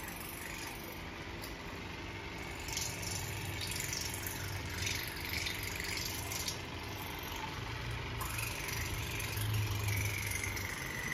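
Cordless water flosser running in the mouth: the steady buzz of its small pump with the water jet spraying against the teeth and splashing into the sink.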